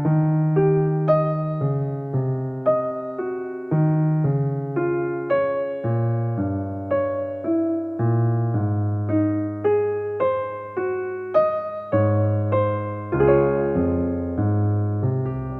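Relaxing piano music: a slow, flowing melody of single notes over sustained bass notes.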